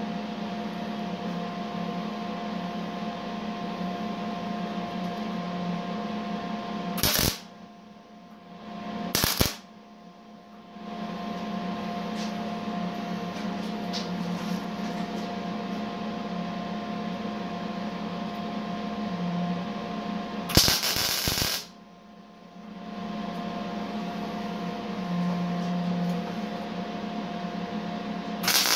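Eastwood MIG 175 welder tack-welding 1-inch square steel tubing: four short bursts of the welding arc, the longest about a second, over a steady electrical hum.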